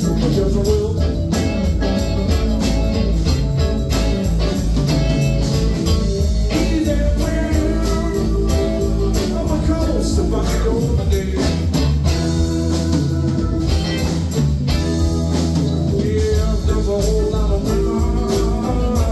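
Live rock band playing a blues-rock number: electric guitars, keyboard, bass and drums at a steady beat, with singing.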